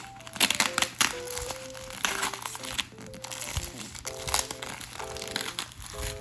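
Background music with a simple melody, chords coming in about four seconds in, over repeated crinkling and rustling of packaging being handled while a mini refrigerator is unboxed.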